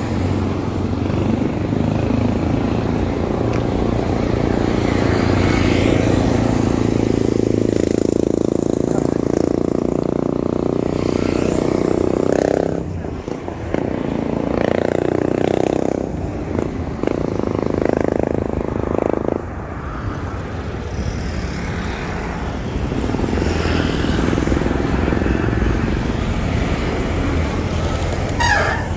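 Road noise heard from a moving bicycle: wind and tyre rumble on concrete, mixed with motorcycles and cars running along the road. A brief sharp sound comes near the end.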